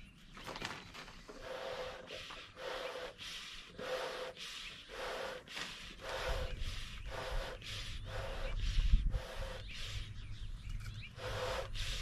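Bee smoker's bellows pumped steadily, about two short puffs of air a second, fanning the burning pine shavings to build hot coals. A low bump near the end of the puffing stands out as the loudest moment.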